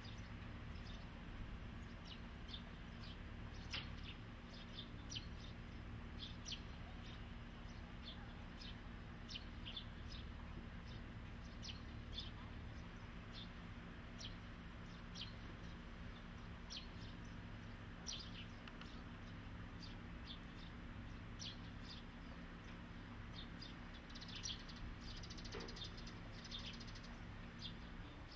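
Small birds chirping in short, scattered calls over a faint, steady low hum.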